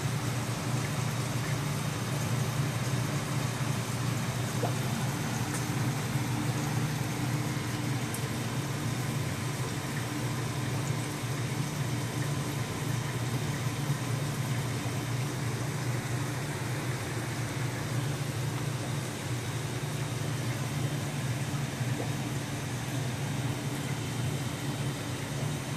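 Steady low machine hum with an even hiss over it, the constant running of aquarium filtration and pump equipment.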